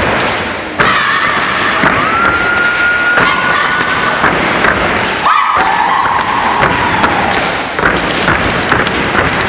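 Step team stepping in unison on a gym floor: a steady run of sharp boot stomps and thuds, with a couple of long, steady high-pitched calls over them.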